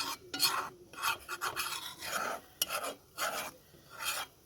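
Coconut being rubbed by hand in short rasping strokes, about two or three a second with brief gaps, working the milk and oil out of it for rundown.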